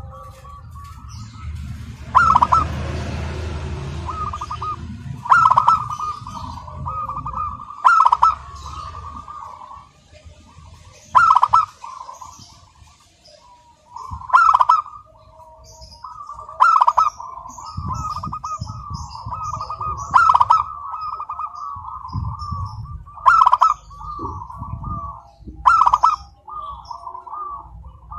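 Zebra dove cooing its rolling song over and over: about ten phrases, each opening with a sharp accented note and running on in a fast trill, one every two to three seconds.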